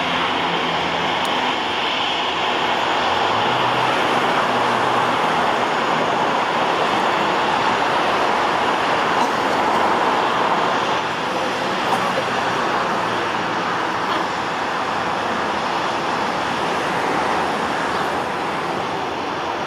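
Airbus A320-214's CFM56-5B turbofan engines, a loud steady jet rush that eases slightly near the end.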